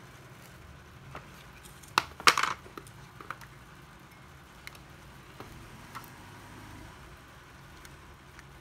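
Handling noises from a cordless drill battery pack and charger: a sharp click about two seconds in, then a short clatter of plastic knocks, and a few faint taps later.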